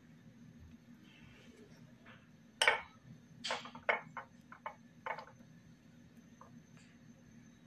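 Several sharp clicks and light clinks of kitchen utensils being handled, with a short rustle among them, from about two and a half to five seconds in, over a faint steady low hum.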